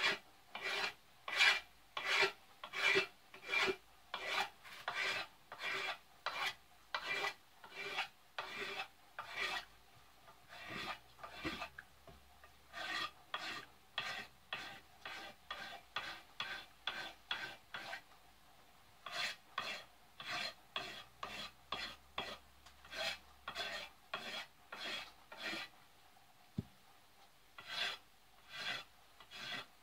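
A knife blade scraping factory varnish off a wooden axe handle in short, rhythmic strokes, a little over one a second, with a couple of brief pauses. One sharp click comes in one of the pauses.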